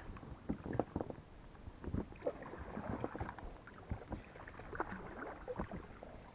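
Rowing an inflatable boat: irregular knocks and creaks from the oars in their oarlocks, with splashes and drips as the blades dip into the water.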